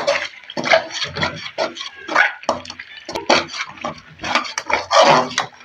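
Spoon stirring semolina through hot ghee and sugar syrup in a karahi: irregular wet scrapes and knocks against the pan, loudest near the end.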